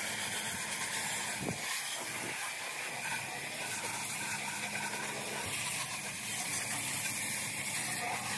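Garden hose spray nozzle giving a steady hiss of water, a gentle rain-like shower rinsing a truck's engine bay.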